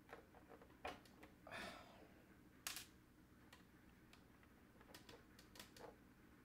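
Faint, scattered clicks and taps of the hard plastic parts of a radio-controlled stadium truck being handled, with a short scrape about one and a half seconds in and a sharper click just before three seconds in.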